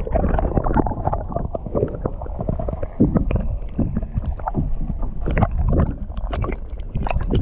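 Muffled underwater sound from a submerged action camera: water gurgling and sloshing, with many irregular knocks and clunks.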